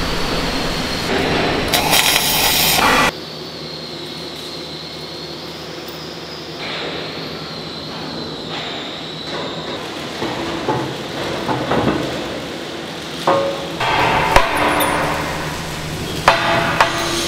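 Hammer blows on the steel plate of an excavator boom: a few sharp metallic strikes in the last four seconds. Before them, a loud, even workshop noise cuts off abruptly about three seconds in.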